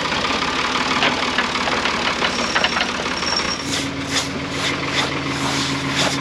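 Portable sawmill's engine running steadily; its note shifts to a new steady pitch about three and a half seconds in, and a light regular ticking joins it, about two a second.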